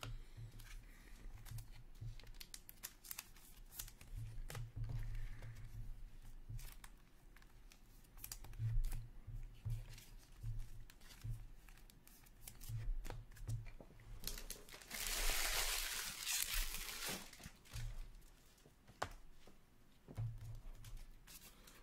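Trading cards and their packaging handled on a table: scattered clicks and rustles of card stock, and about 15 seconds in, a tear of wrapper lasting a second or two.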